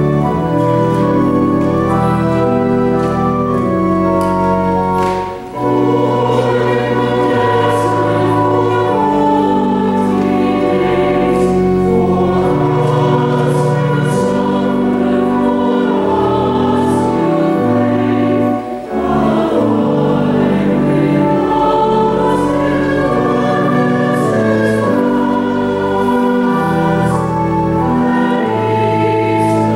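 Church choir singing in held chords with organ accompaniment, with two brief breaks between phrases, about five and nineteen seconds in.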